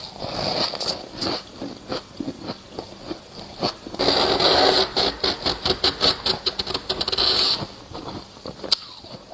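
Freezer frost crunching: scattered single crunches, then a dense run of quick crisp crunches from about four seconds in to about seven and a half, then a few more.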